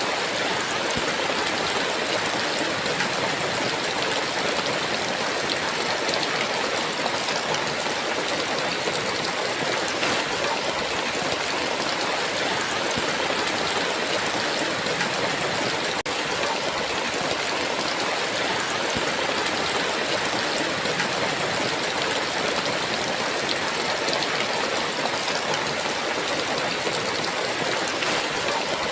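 Heavy rain falling in a steady downpour, an even dense hiss that does not let up.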